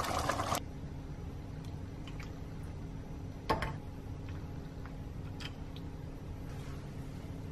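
Curry gravy simmering in the pot, cut off after about half a second. Then a low steady hum with a few light clicks of a serving spoon against a steel bowl, the loudest about three and a half seconds in.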